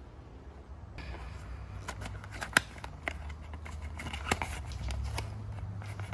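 Cardboard box of braided fishing line opened by hand: crackling and sharp clicks of the flaps and packaging, with one loud snap about two and a half seconds in.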